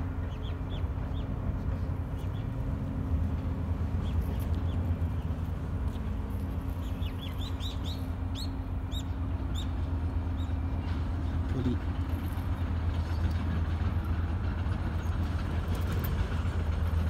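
Steady low rumble of a motor vehicle and street traffic, with a small bird giving a quick run of short chirps around the middle.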